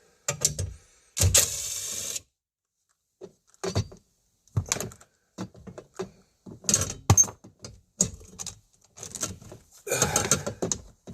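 Hand tools and plastic dashboard parts being handled: scattered clicks, taps and knocks, with a dense rattling burst lasting about a second about a second in, and another rustling stretch near the end.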